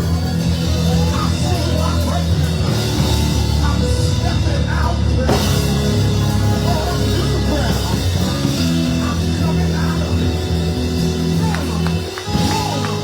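Loud live band music with a drum kit and sustained bass notes, voices singing over it, and a sharp cymbal-like hit about five seconds in.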